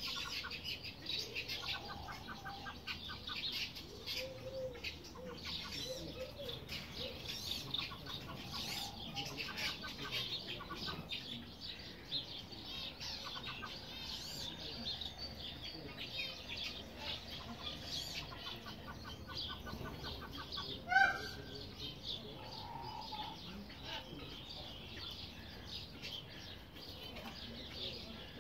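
Birds in an aviary calling: a busy, steady chatter of high chirps and peeps, with a few short rattling calls and one louder call about three quarters of the way through.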